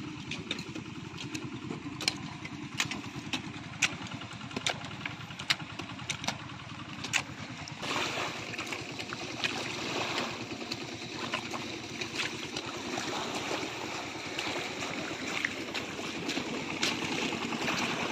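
A small engine running steadily. Over it come irregular sharp knocks in the first half, hoes striking the wet soil and stones. From about eight seconds a louder rushing noise joins in.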